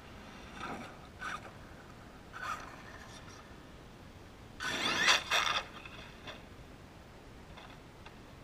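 Traxxas E-Revo RC truck with a Mamba brushless motor accelerating hard away from close by, about halfway through: a brief rising motor whine with tyre noise on the road surface. A few short, fainter sounds come before it.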